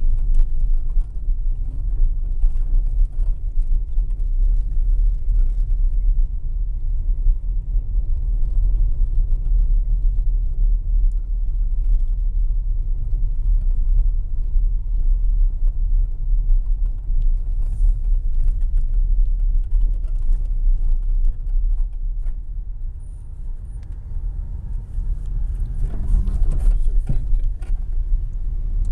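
Steady low rumble of a car driving, heard from inside the cabin: road and engine noise, heaviest in the deep bass.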